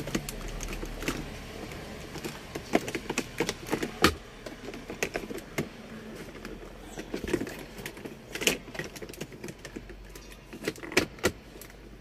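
Scattered clicks, taps and knocks of a car's plastic and wood-grain centre-console trim being handled and pressed into place around an automatic gear shifter, with a sharper knock about four seconds in and more a few seconds later.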